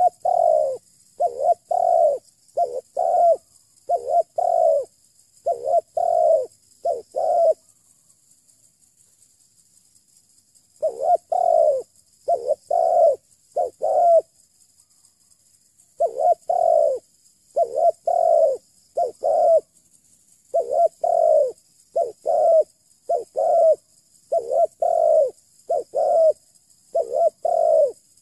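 Spotted dove cooing, loud and close: runs of repeated low coo phrases, broken by pauses about 8 to 11 seconds in and around 14 to 16 seconds. A faint steady high hiss runs underneath.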